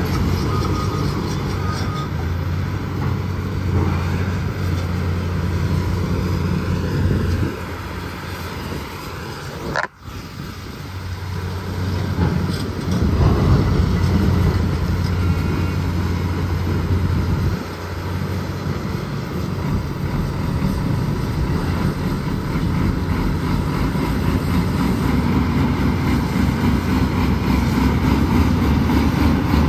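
Heavy diesel truck engine running steadily, with a brief break about ten seconds in, after which it comes back louder.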